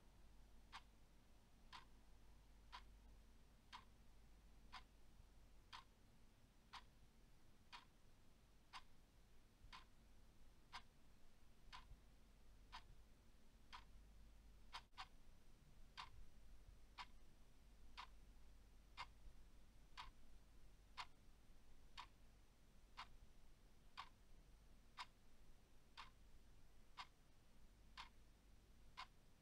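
A clock ticking steadily and faintly, about one tick a second.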